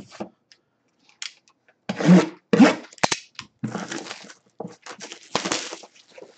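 Sealed cardboard hobby box being opened by hand: an irregular run of tearing, scraping and crinkling, loudest about two seconds in, with plastic wrapping rustling.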